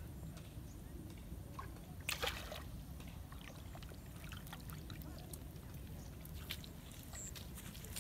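A hooked climbing perch splashing as it is jerked up out of pond water about two seconds in, followed by small scattered splashes and drips as it swings on the line.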